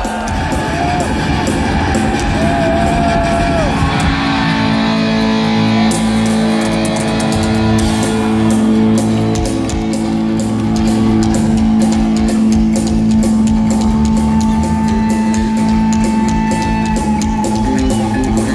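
Heavy metal band playing live: electric guitar and bass guitar with drums, with the drum strokes filling in about six seconds in.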